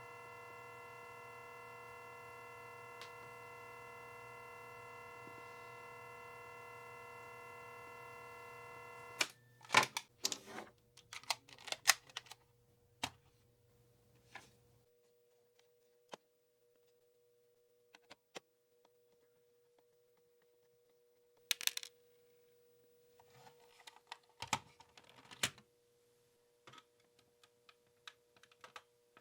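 A steady held tone made of several pitches sounds for about nine seconds and cuts off abruptly. Scattered small clicks and taps follow over a faint steady tone, typical of hands working on a small cassette player during a repair.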